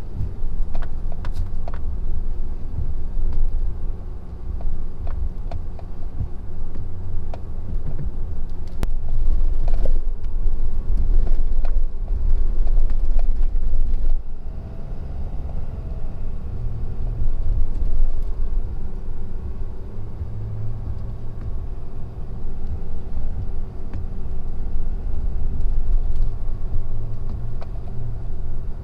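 Ford F-250's 6.7-litre Power Stroke V8 diesel running under load, a steady low rumble whose pitch rises and falls as the truck works, with scattered knocks.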